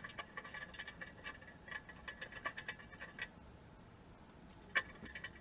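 Light, irregular metallic clicking of bolts being fitted by hand into the treadmill's upright crossbar bracket, quick ticks for about three seconds, then one louder click near the end.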